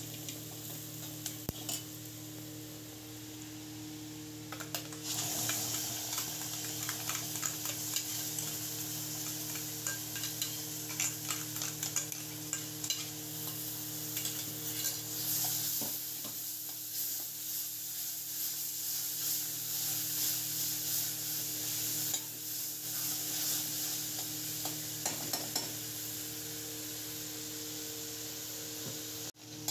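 Masala of onions and ground spices sizzling in hot oil in a kadhai, with a metal spatula stirring and scraping against the pan. The sizzle grows louder about five seconds in. A steady low hum runs underneath.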